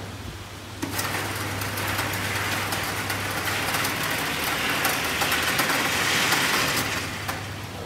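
Electric target carrier running along its overhead track, bringing the paper target back to the shooting bench: it starts with a click about a second in, runs as a steady whirring rattle, and stops near the end.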